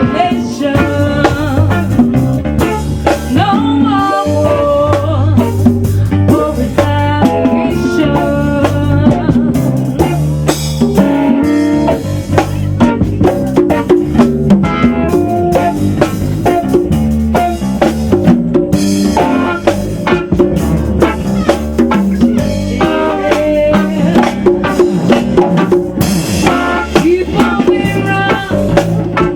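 A rock band playing a song: a drum kit keeping a steady beat under guitar and a singing voice.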